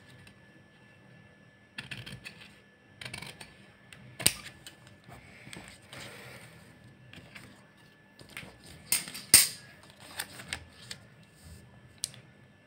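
Scissors snipping through folded paper, then the cut paper being handled, unfolded and laid flat, giving crisp rustles and sharp clicks; the sharpest comes about nine seconds in.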